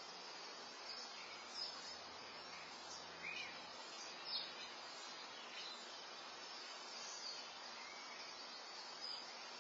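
Faint steady hiss with a few brief bird chirps scattered through it, the clearest about one and a half, three and four and a half seconds in.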